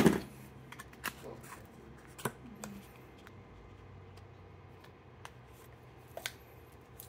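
Plastic vacuum-sealed steak packs being handled and lifted out of a tray, giving a few scattered clicks and crinkles.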